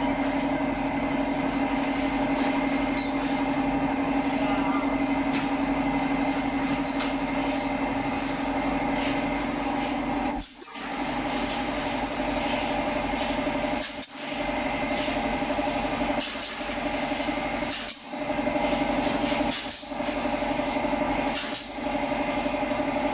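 A steady machine hum holding the same pitch throughout. In the second half it briefly drops out several times.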